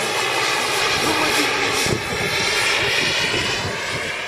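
Turbine-powered radio-controlled scale Bell helicopter in flight: a steady high turbine whine made of several pitched lines over the rotor's rough rumble, easing off slightly near the end as it flies away.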